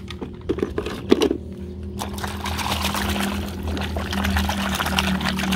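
Muddy water splashing and sloshing as a plastic toy vehicle is scrubbed by hand in a puddle, starting about two seconds in; a few light knocks of the toy being handled come before.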